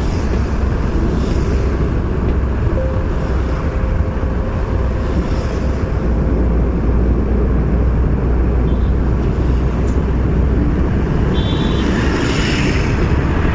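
Car driving in the rain: steady road and tyre noise on a wet surface over a low engine rumble, with a brighter rushing hiss near the end.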